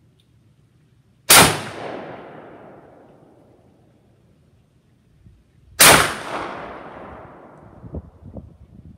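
Two gunshots about four and a half seconds apart from a side-by-side shotgun fitted with .45 Colt barrel inserts, firing .45 Colt lead round-nose reloads; each sharp report trails off in a long fading echo. A few light clicks follow near the end.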